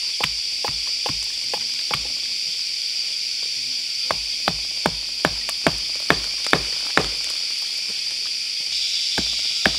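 Back of a steel hatchet hammering wooden pegs into a tree trunk: sharp knocks about two a second, in short runs with pauses between. The longest run comes about four seconds in.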